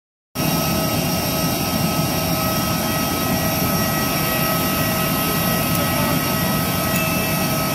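Airbus A320 turbine running steadily on the ramp: a constant loud rush with several steady high whining tones. It cuts in a moment after the start.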